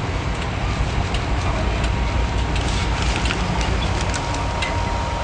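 Rocky Mountaineer passenger train running: a steady low rumble with scattered clicks and rattles, and a faint thin whine that comes in about halfway through.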